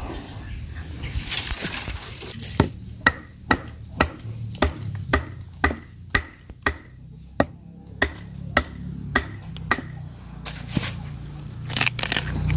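Steady chopping strikes of a blade into bamboo: a sharp knock with a short ring, about two a second, starting a couple of seconds in and stopping near ten seconds.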